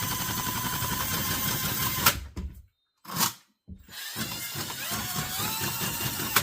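Ryobi 18-volt cordless drain auger's motor running, spinning its cable in a sink drain. It stops abruptly about two seconds in, gives a short blip, then runs again for a couple of seconds and stops with a click near the end.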